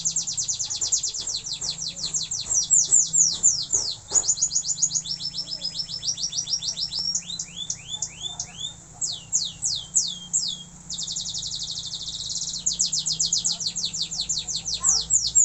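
Domestic canary singing a long, unbroken song of fast repeated trills and downward-sweeping whistles, with a rapid buzzing roll shortly before the end.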